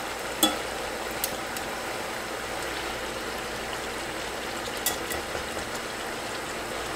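Shrimp and garlic sizzling and bubbling in olive oil in a cast-iron skillet, with a few sharp clicks of tongs against the pan as the shrimp are turned, the loudest about half a second in and another near five seconds.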